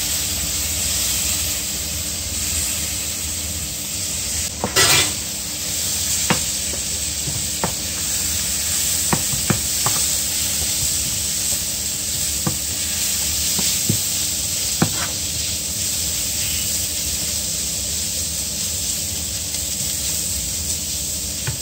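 Grated carrot, onion and leek sizzling as they sauté in olive oil in a frying pan, with a steady hiss. A wooden spoon stirs the vegetables and knocks sharply against the pan several times, the loudest knock about five seconds in.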